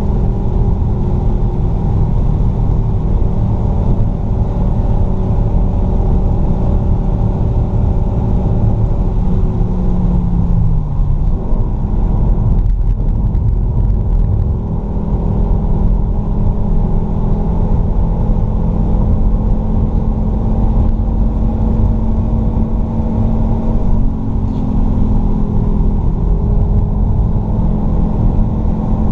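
Fiat Stilo Abarth's 2.4-litre five-cylinder engine pulling hard at track speed over a heavy low rumble. The engine note falls as the driver lifts about ten seconds in, then climbs slowly through a long pull, with a short jump and drop in pitch near the end.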